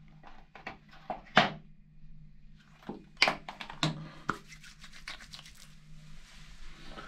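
A small jar of hair product being opened and handled, a string of clicks and taps. Then palms rub together and work the product through hair, a soft rustling over the last few seconds.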